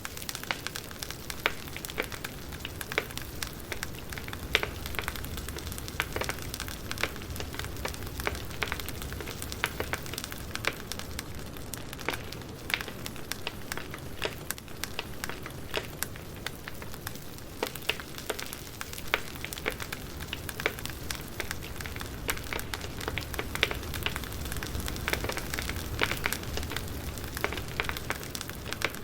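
Campfire burning: wood crackling and popping in many irregular sharp snaps over a steady low rumble.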